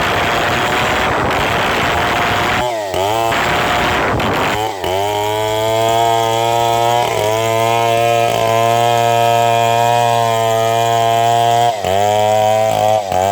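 Two-stroke chainsaw cutting into wood under load for the first few seconds, its engine dropping and picking up revs twice, then running steadily at high revs clear of the cut, with a brief dip in revs near the end.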